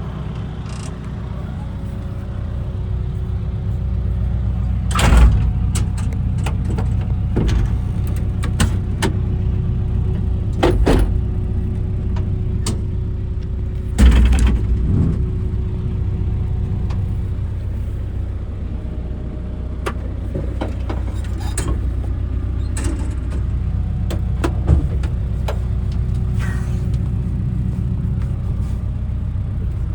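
Hitachi ZX170W-5B wheeled excavator's diesel engine running steadily, with a thin steady tone above it and a series of sharp clanks and knocks, the loudest about five seconds in and again about fourteen seconds in.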